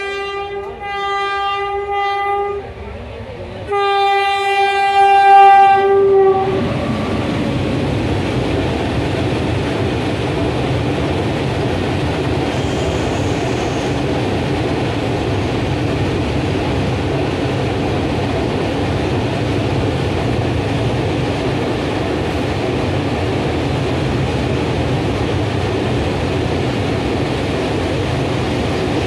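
A freight train's locomotive horn sounds a few short blasts, then a longer, loudest blast about four seconds in. After that comes the steady rumble and clatter of the train's open freight wagons rolling past on the rails.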